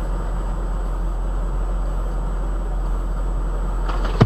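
Steady low hum and noise of a car's running engine, heard from inside the cabin through a dashcam microphone, with a brief sharp sound right at the end.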